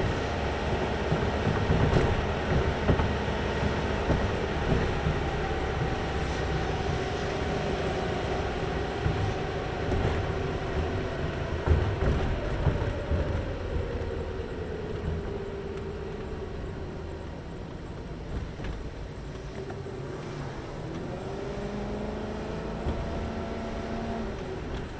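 A car driving on a road, heard from inside the cabin: steady tyre and road rumble under the engine note, which slowly falls over several seconds and then rises again near the end.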